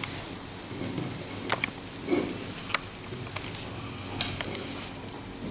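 Cable connectors of a dome security camera being handled and plugged together: a handful of sharp clicks with light rustling of the leads.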